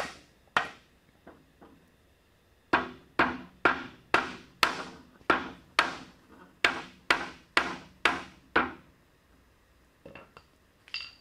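Hammer striking the walnut rails of a glued sofa frame to seat the joints. One blow, then a steady run of about a dozen wooden knocks, about two a second, with a couple of light knocks near the end.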